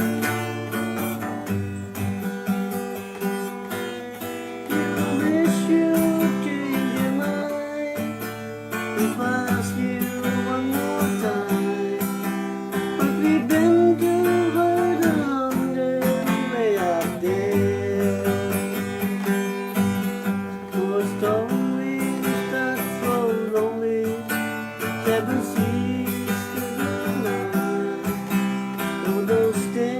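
Acoustic guitar strummed through an instrumental break, with a melody line over the chords that bends and glides in pitch.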